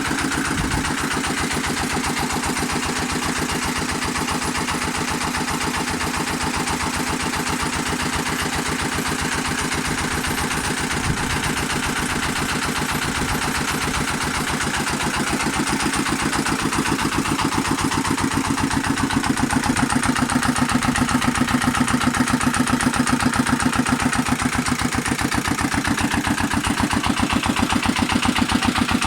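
Small Lister stationary engine running steadily with an even, regular beat, driving a sawmill. It grows somewhat louder about two-thirds of the way through.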